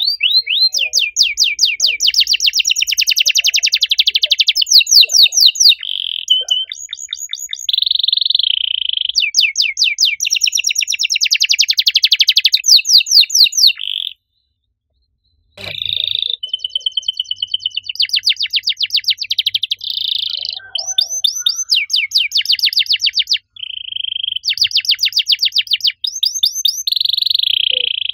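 Domestic canary singing a long, loud song of fast trills, each a quick run of repeated chirps, alternating with short buzzy rolls. The song breaks off for about a second and a half midway, then starts again after a click.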